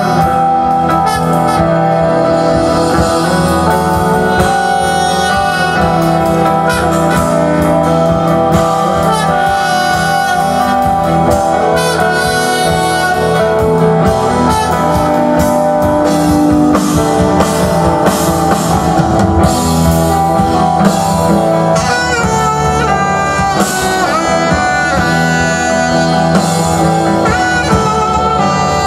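Live rock band playing an instrumental passage: drum kit, electric bass and keyboard, with a saxophone playing the melody line over them.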